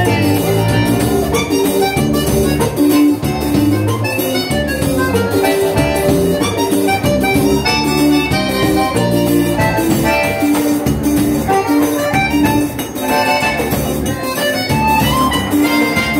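Live band music led by a Scandalli piano accordion, with electric bass guitar and a drum kit keeping a steady beat.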